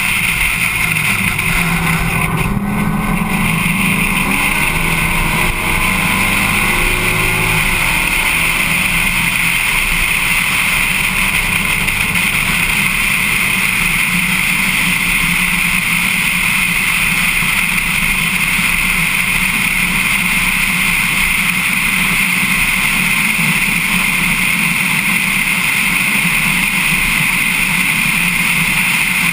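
Race car engine running at speed, heard from on board under a constant high rush of wind and road noise; the engine note shifts during the first several seconds, then holds steady.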